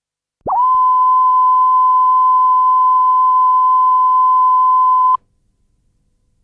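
Steady 1 kHz reference test tone played with colour bars at the head of a television recording; it starts about half a second in and cuts off suddenly about five seconds in.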